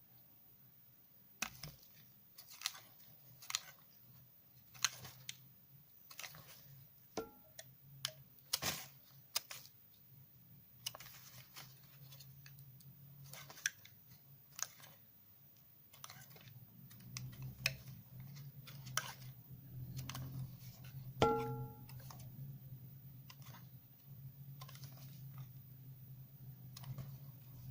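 Bar of soap coated in washing powder crunching as it is cut, a string of irregular sharp crunches and clicks about once a second, over a steady low hum.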